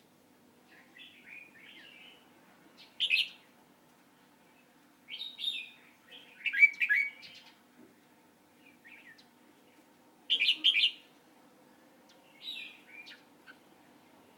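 A bird chirping in irregular clusters of short, quick calls, with the loudest bursts about three, seven and ten seconds in.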